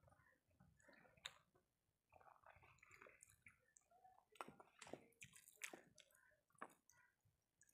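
Faint eating sounds: wet chewing and soft mouth clicks, with the squish of fingers mixing rice and omelette on a plate. Scattered short clicks, busier in the second half.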